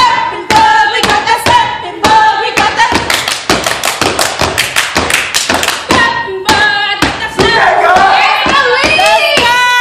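Step team stamping and clapping in a quick, steady rhythm, with voices calling out over the beat, more of them toward the end.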